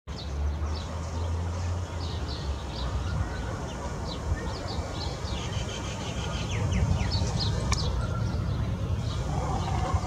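Small birds chirping in many short, quick falling notes, over a steady low rumble.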